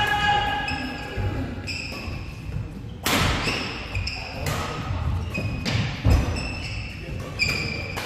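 Badminton play: sharp cracks of rackets hitting the shuttlecock, the loudest about three seconds in and again about six seconds in, ringing in the hall, with court shoes squeaking on the floor in short high chirps throughout.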